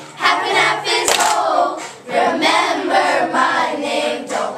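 A group of children singing the chorus of a rap song together in unison, with one sharp knock about a second in.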